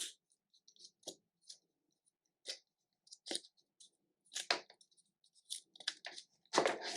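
Apple accessory packaging being handled: scattered small clicks and crinkles, then a longer crinkling rustle near the end.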